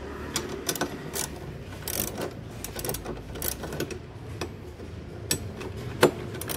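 A 10 mm socket ratchet wrench on an extension clicking in short, irregular runs as a bolt on the scooter's rear seat mounting is worked loose, with one sharper knock about six seconds in.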